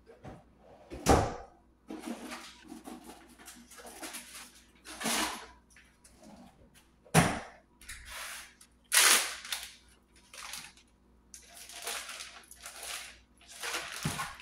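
Plastic zip-top freezer bag crinkling and rustling in uneven bursts as it is opened and a packaged tray of chicken is pushed into it. Two sharp clacks stand out, about a second in and again about seven seconds in.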